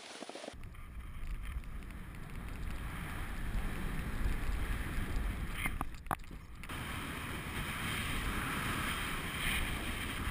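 Wind rumbling on a GoPro's microphone while riding downhill on a snowboard, with the board hissing and scraping over the snow.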